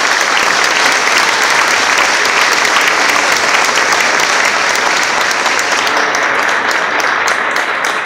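Audience applauding, loud and sustained, with individual claps standing out more near the end.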